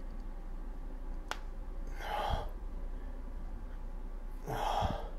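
Two heavy breaths close to the microphone, about two and a half seconds apart, each with a low puff, from a man straining to hold a biceps flex. A small click comes about a second in.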